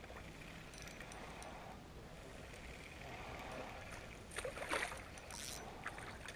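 A hooked fish thrashing and splashing at the water's surface as it is reeled in to the bank, with several sharp splashes in the second half.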